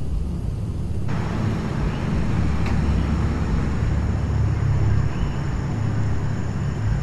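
Steady low rumble of outdoor street ambience at night, like distant traffic. A band of hiss cuts in abruptly about a second in and stays to the end.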